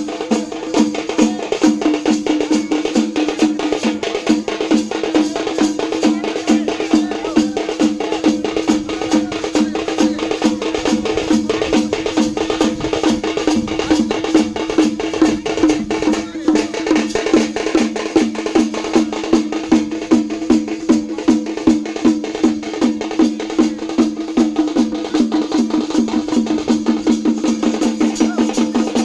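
Live drumming: a fast, even beat of loud strikes with a steady droning tone held beneath it.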